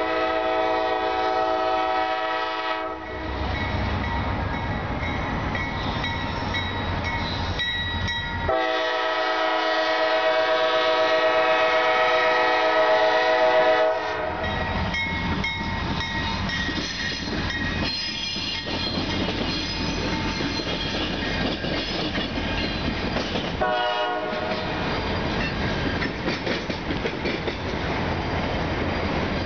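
GE Dash 8-40CW diesel locomotive's air horn sounding two long blasts, the first ending about three seconds in and the second lasting about five seconds. Between and after the blasts come the rumble and wheel clatter of freight cars rolling past.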